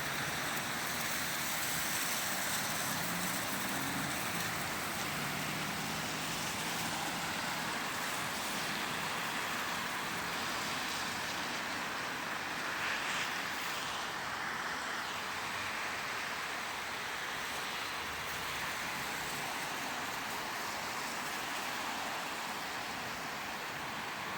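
Steady road traffic: a continuous wash of tyre and engine noise from passing vehicles, with a faint low engine hum a few seconds in.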